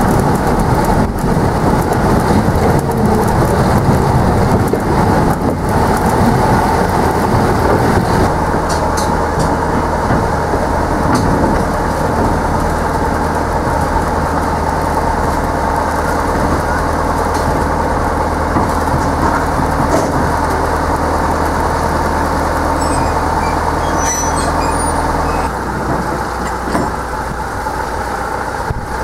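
Narrow-gauge field-railway train heard from an open passenger car: a rumbling rolling noise of wheels on the track. After about eight seconds this gives way to the steady running of the small diesel locomotive's engine, which drops in level a few seconds before the end.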